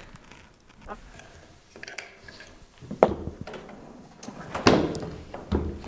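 A few soft knocks and handling sounds of small objects being picked up and moved on a wooden coffee table, spaced out, the loudest knock about three quarters of the way through.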